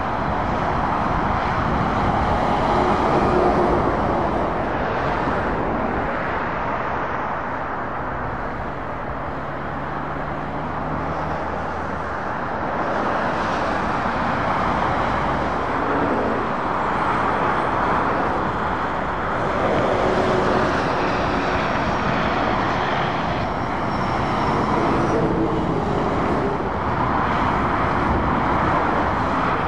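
Motorway traffic: lorries and cars passing in a steady stream, the engine and tyre noise swelling and easing as each vehicle goes by.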